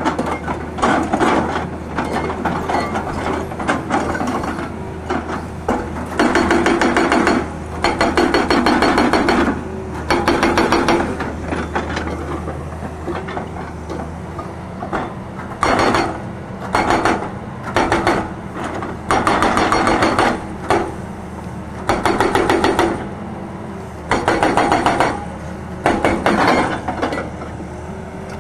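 Hydraulic rock breaker on a Tata Hitachi excavator hammering rock in repeated bursts of rapid blows, each burst a second or two long with short pauses between. The excavator's diesel engine runs steadily and low underneath.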